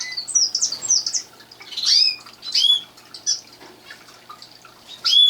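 Roller canaries chirping: a quick series of short, high calls, several of them sweeping up or down in pitch, repeating about every half second.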